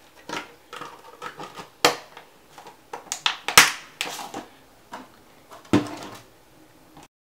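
Pink glitter slime squeezed and pressed between the hands, making irregular sticky clicks and pops, the loudest about three and a half seconds in. The sound cuts off suddenly near the end.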